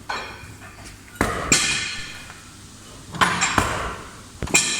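Hammer blows on steel, about seven irregular strikes, several in close pairs, each with a short metallic ring. They come from work to free the broken piston rod from a hydraulic cylinder.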